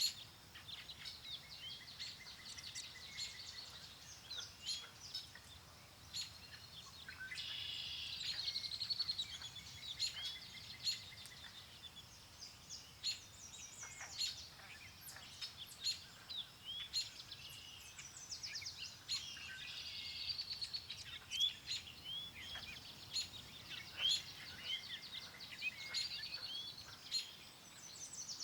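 Several songbirds chirping and singing in many short, overlapping calls, over a faint low rush of wind.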